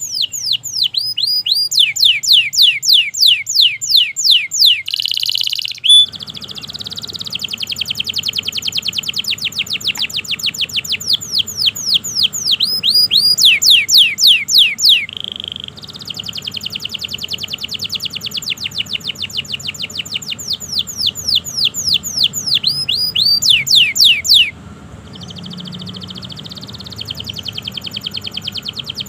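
Domestic canary singing continuously in long rolling trills of rapid, repeated down-slurred notes, some rolls slower and some quicker, with two abrupt joins where the recording is spliced, about six seconds in and near the end.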